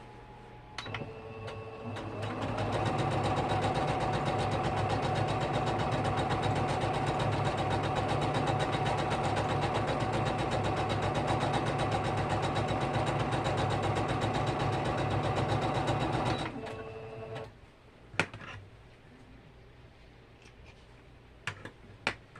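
Electric sewing machine stitching at a steady fast speed, speeding up over the first couple of seconds and slowing to a stop about 17 seconds in. It is followed by a few sharp clicks.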